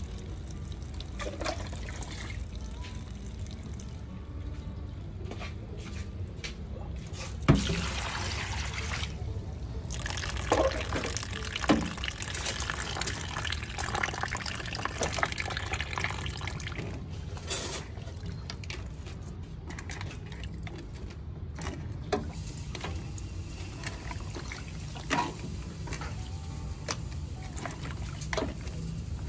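Tap water running and splashing into a plastic colander of live giant river prawns in a stainless steel sink, as hands stir and rinse them. A few sharp knocks and clatters of shells and colander against the sink, the loudest about seven seconds in.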